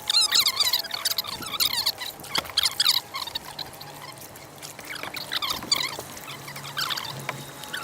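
Water trickling and splashing close by, full of rapid bubbly plinks that come in clusters.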